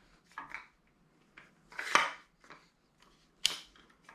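A few sharp metal clinks and taps from the cam bearing installer tool and hammer working at a camshaft bearing in a small-block Chevy engine block. The two loudest come about two seconds and three and a half seconds in.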